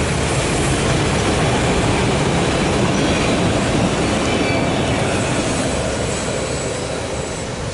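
Empty autorack freight cars rolling past on steel rails, a steady heavy rumble of wheels with faint wheel squeal. The last car goes by about halfway through, and the sound slowly fades as the train moves away.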